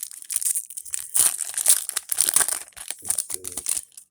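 Foil wrapper of a Yu-Gi-Oh booster pack crinkling in irregular bursts as it is torn open and handled.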